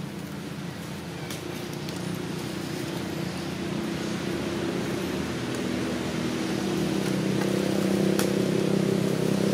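A motor engine running with a steady low hum, getting gradually louder. A couple of faint sharp clicks sound over it.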